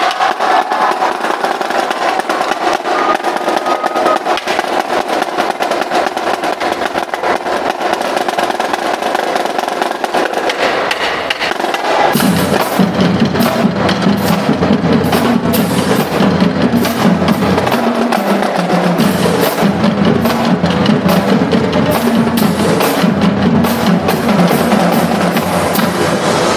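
Marching drumline playing: snare drums and tenor drums in fast, dense patterns. About twelve seconds in, the pitched bass drums come in and the sound grows fuller and louder.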